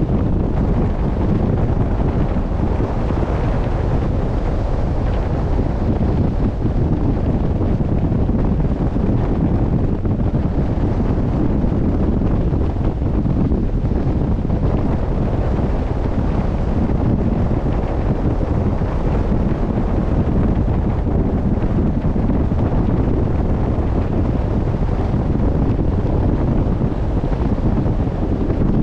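Steady wind buffeting the microphone at sea: a constant, loud, low rush with no breaks, with the wash of the sea under it.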